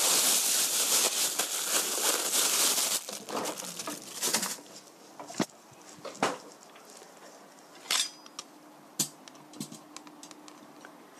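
Plastic bag crinkling and rustling as it is handled for about the first three seconds, then a few scattered light clicks and knocks of kitchen items being picked up.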